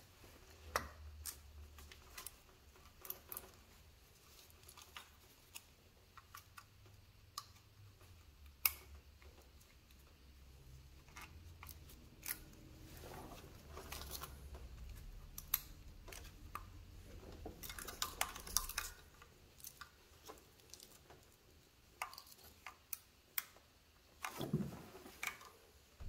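Scattered light clicks and knocks of hand work on the engine, such as tools and parts being handled and connectors or fasteners going back on, with a faint low hum through the middle.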